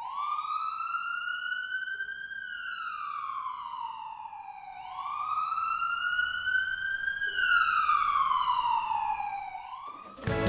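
Emergency-vehicle siren wailing, its pitch sweeping slowly up and down about every five seconds. It goes through two full rise-and-fall cycles and cuts off early in a third rise.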